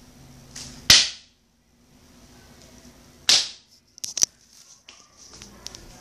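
Handling noise from the recording camera as it is grabbed and moved: two loud sudden knocks with a brief rushing hiss, about a second in and about three seconds in, then a few lighter clicks.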